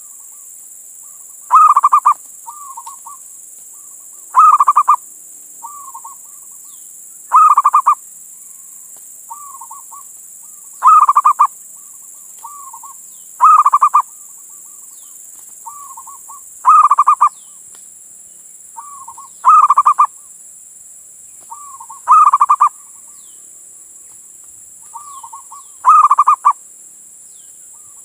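Male zebra dove (perkutut) cooing its song over and over: a loud call phrase about every three seconds, each followed by a softer short coo.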